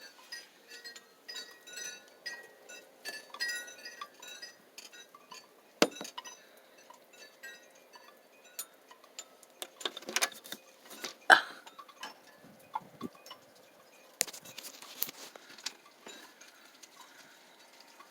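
Ice storm outdoors: ice clinking and tinkling as wind knocks glazed branches together, in many small scattered ticks. Louder sharp knocks come about six seconds in, around ten to eleven seconds, and near fourteen seconds.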